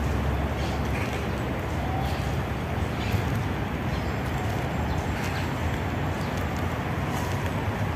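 A person's footsteps, faint short steps about once a second, over a steady low outdoor rumble.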